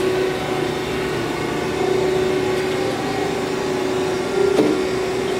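Brown & Sharpe 818 Micromaster surface grinder running with its table traversing: a steady mechanical hum with a held tone. One short knock about four and a half seconds in, where a table dog trips the reversing switch.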